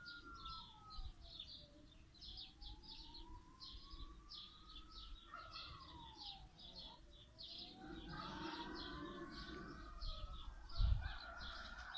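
Small birds chirping in quick, continuous bursts. Behind them a distant siren wails, slowly rising and falling in pitch, and a low thump sounds near the end.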